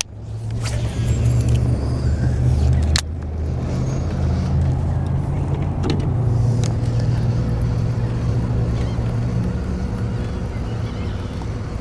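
Small boat motor running steadily, a low drone, with a few sharp clicks over it.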